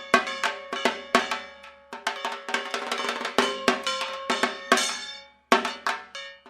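Dhak drums played in a fast rhythm of sharp strokes, with a ringing tone hanging after the strokes. The playing breaks off for a moment about five seconds in, then starts again.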